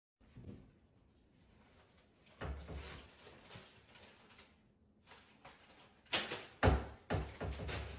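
A few knocks and thumps in a small room: one about two and a half seconds in, then a cluster of sharper, louder knocks near the end.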